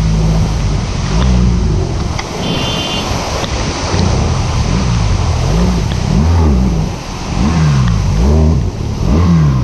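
Motorcycle engine running under way, its pitch rising and falling again and again as the throttle is opened and closed, over a steady rushing noise.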